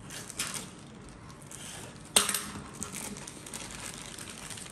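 Thin clear plastic bag crinkling and rustling as it is slit open and the otoscope is drawn out of it, with one sharp clack about two seconds in.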